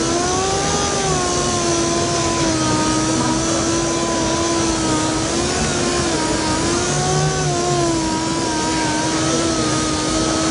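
Pneumatic dual-action orbital sander running steadily against a painted panel, with a 1500-grade Trizact disc levelling the orange peel flat. Its whine holds near one pitch, wavering slightly as the pad is moved.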